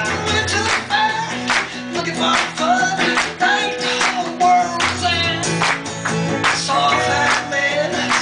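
Live folk-rock song: a man singing over strummed acoustic guitar and a second electric guitar, with a steady strumming beat.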